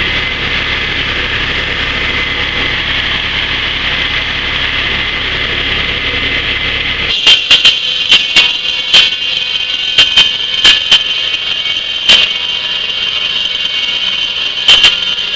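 Tractor-driven cordwood saw: the old Massey Ferguson running and the big circular blade spinning with a steady whine. About seven seconds in, the blade is cutting a dry ironwood log, ringing with a steady tone and a series of irregular sharp knocks as the wobbling blade chatters and rubs in the cut.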